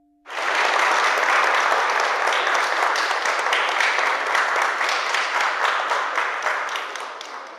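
A small crowd applauding, many hands clapping. It starts abruptly just after the start and dies down near the end.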